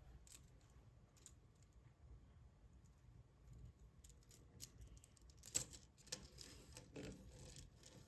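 Faint, scattered clicks and crinkles of small plastic toys and wrappers being handled, with a sharper click about five and a half seconds in.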